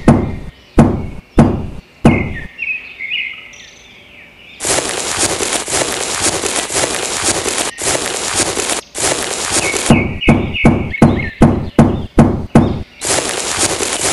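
Small hand trowel knocking in quick runs of sharp taps and scraping across fine sand to smooth it, the scraping a long gritty rasp.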